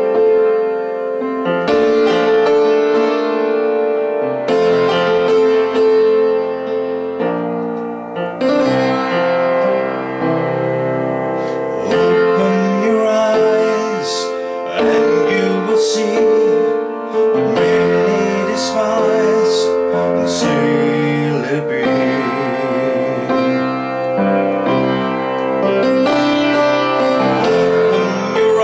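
A musical-theatre song: piano accompaniment with several voices singing, some held notes wavering in vibrato.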